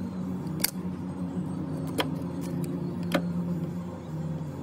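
A steady low machine hum runs throughout, with three sharp clicks or taps, at roughly one-second intervals.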